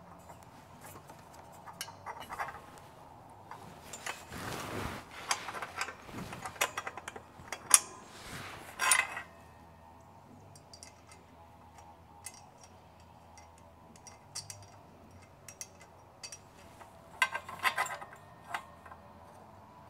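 Metal bolts and hand tools clinking and clicking against metal while exhaust header bolts are being tried for fit, in scattered clinks and short scrapes. The loudest is a sharp knock about eight seconds in, followed by a quieter stretch of faint ticks before a few more clinks near the end.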